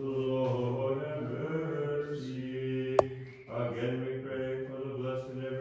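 Orthodox liturgical chanting: a male voice on steady held notes in short phrases, with a brief pause and a single sharp click about three seconds in.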